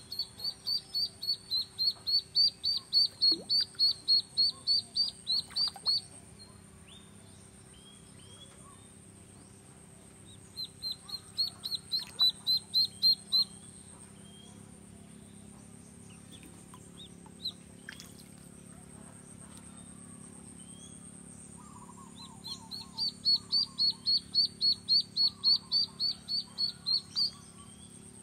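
Duckling peeping in rapid runs of high, evenly spaced peeps, about three a second, in three bouts of several seconds with pauses between: one at the start, one about ten seconds in, and one near the end. It is dangling from a fishing line as live bait over the water.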